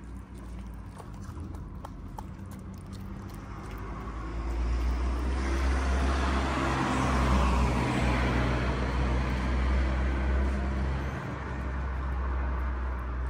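A motor vehicle passes close by: its engine and road noise swell from about four seconds in, peak around seven or eight seconds, and ease off near the end. In the first couple of seconds there are small clicks of cats eating.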